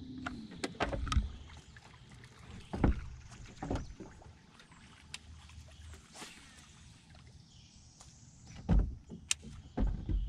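Scattered hollow knocks and thumps on the hull of a metal jon boat, about seven of them, the loudest about a second in, about three seconds in and near the end. A low steady hum stops just as they begin.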